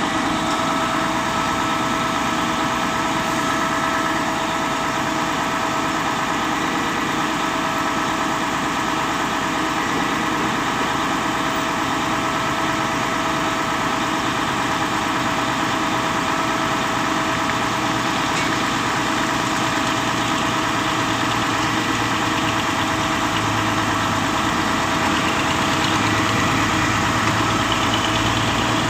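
Diesel engine of an XCMG truck-mounted concrete pump running steadily, with a steady whine over it, as it drives the hydraulics that open the boom.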